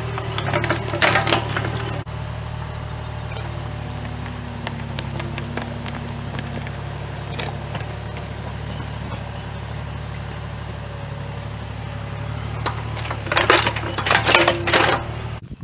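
Mini excavator's engine running steadily while its bucket digs a trench. Bursts of cracking and snapping come about a second in and again near the end as the bucket tears through soil and tree roots.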